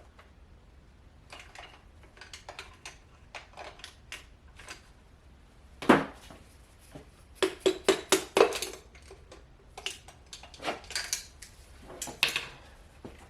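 Metal tools tapping and clinking against the piston and connecting rod of a 5.3 L LS V8 as it is driven out of its cylinder bore. Scattered light taps give way to one loud knock about halfway through, then quick runs of knocks.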